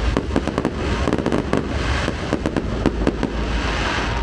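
Fireworks display: a rapid, dense succession of bangs and crackles from bursting shells, several per second, over a continuous low rumble.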